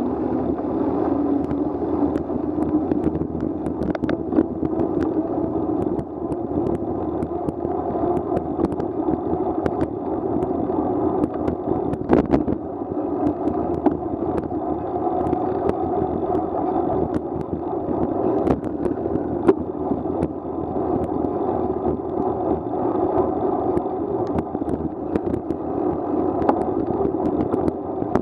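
Steady rushing noise of a bicycle ride on a wet road: wind over the bike-mounted camera and the tyres hissing through water, muffled, with scattered light clicks and taps.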